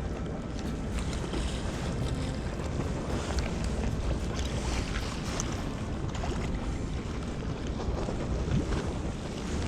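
Wind buffeting the microphone over the sound of sea water, a steady rough rumble with a few faint clicks.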